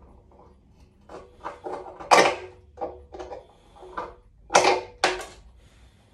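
Hand tool working at the seized fuel tap of a BSA C15's steel petrol tank: a run of irregular scraping, straining strokes of metal on metal. The loudest comes about two seconds in, with two more close together from about four and a half seconds in.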